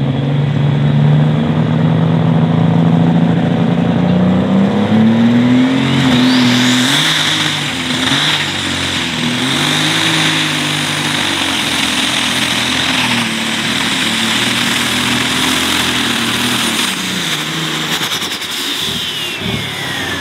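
Turbocharged Light Super Stock pulling tractor engine revving up at the start of a pull, then running at full throttle under the load of the sled. A high turbo whine climbs steeply about six seconds in, holds, and winds down near the end as the pull finishes.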